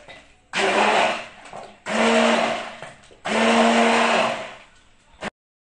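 Hand-held immersion blender running in three pulses of about a second each, blending milk, ice cream and Nutella into a milkshake in a tall beaker.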